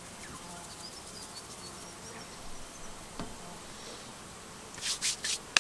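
Flies buzzing faintly and steadily in the open air. Near the end come a few quick brushing, rubbing strokes of hands working in flour.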